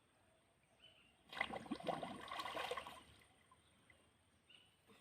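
Water splashing and sloshing for about a second and a half, a little after the start; otherwise quiet.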